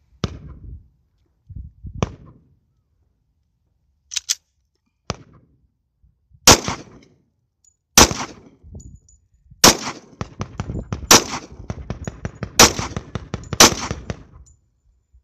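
Six shots from a Taurus 24/7 G2 pistol in .45 ACP, fired one at a time about one to one and a half seconds apart in the second half, after a few lighter knocks.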